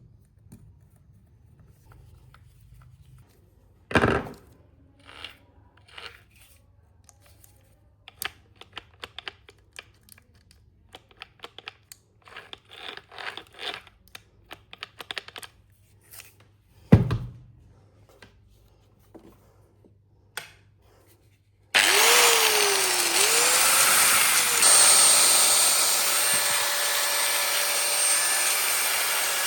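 Scattered clicks and knocks of a tool being handled, with two louder thumps. Then an angle grinder is switched on about three-quarters of the way in and runs steadily with a high whine.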